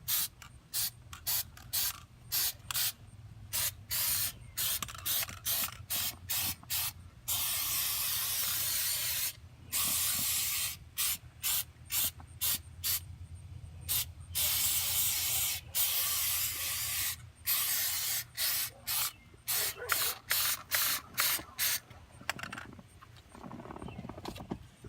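An aerosol can of 3M Super Trim Adhesive spraying in many short bursts, about one or two a second, with a few longer sprays of a second or two in the middle.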